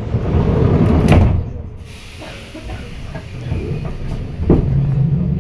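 Metro train heard from inside the car: low rumble with a sharp clank about a second in, then a hiss of air. Near the end a second clank comes, followed by a steady hum and a slowly rising motor whine as the train pulls away.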